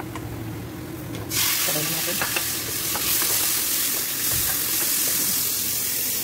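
Chopped onions and tomatoes hit hot oil in a frying pan, and about a second in the pan starts sizzling loudly and keeps sizzling steadily, with the light scrape and clicks of a wooden spoon stirring.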